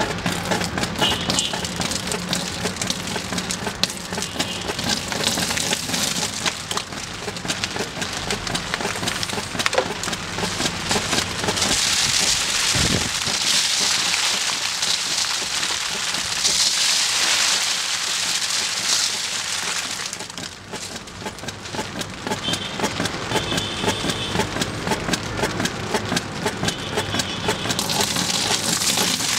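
Table fan running with a steady low hum while paint, glitter and sequins spatter onto its spinning surface in a dense, rain-like patter.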